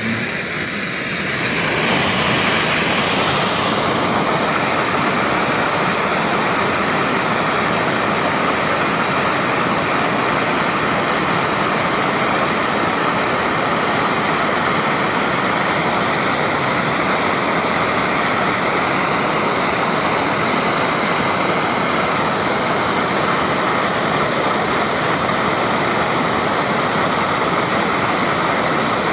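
Handheld gas torch flame burning with a steady roaring hiss as it heats a leaking joint on a microchannel coil for soldering. It builds a little over the first two seconds, then holds steady.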